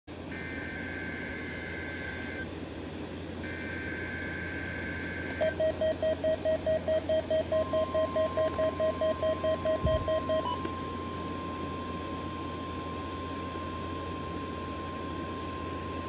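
NOAA weather radio receiving the Required Weekly Test: two bursts of warbling SAME data tones, then the radio's pulsing alert beep, about four beeps a second, for some five seconds until a button press silences it. From about halfway through, a steady 1050 Hz attention tone sounds and holds.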